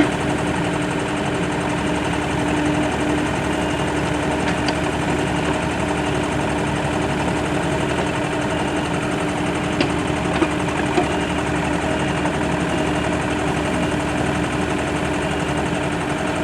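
Excavator's diesel engine running steadily as it works to pull a mired skid steer out of the mud, with a few light knocks about ten seconds in.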